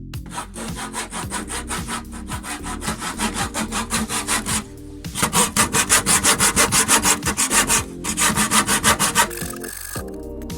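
Hand saw cutting through a wooden frame timber in quick, even back-and-forth strokes, about three to four a second, pausing briefly twice and getting louder in the second half. It stops a second or so before the end as the cut is finished.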